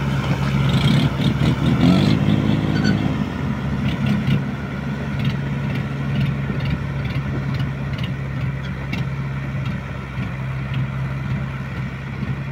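Swaraj 843 XM tractor's three-cylinder diesel engine running hard under load, straining to pull a trailer loaded with sand that is stuck in soft sand. The revs climb briefly about two seconds in, then the engine labours on at a steady pitch.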